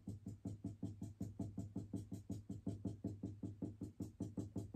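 Felt-tip marker tapping and flicking across paper on a wooden drawing board in quick short strokes, about eight a second in an even rhythm.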